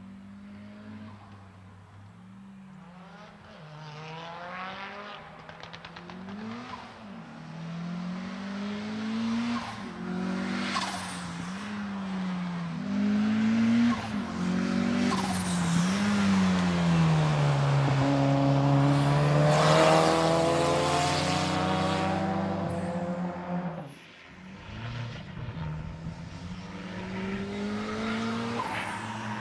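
Nissan 200SX race car engine on a slalom run, revving up and dropping back again and again as the driver accelerates and lifts between gates. It grows louder to a peak around the middle as the car comes closest, drops away sharply about three-quarters in, then builds again.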